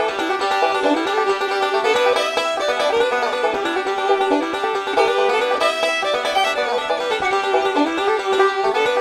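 Background music: an upbeat tune of quick plucked-string notes in a bluegrass style, with little bass.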